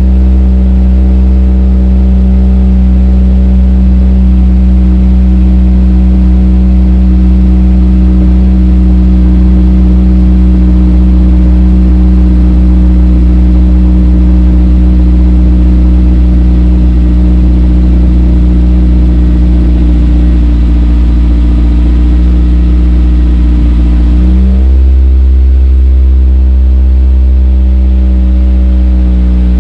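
Honda S2000 four-cylinder engine idling steadily after a cold start, heard at the tailpipes through an Amuse R1 Titan exhaust, TODA manifold and decat pipe. About 24 seconds in, the idle note shifts slightly in pitch, then holds steady again.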